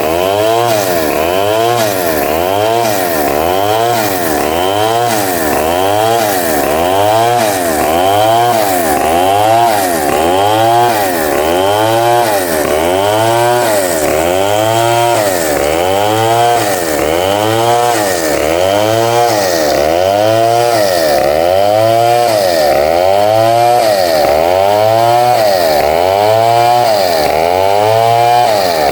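Vertical bandsaw running through rough timber, a loud steady machine sound that pulses evenly about once a second.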